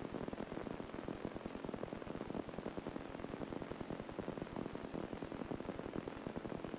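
Piper PA-18-150 Super Cub's Lycoming O-320 four-cylinder engine and propeller running steadily during takeoff, an even, rapidly pulsing drone.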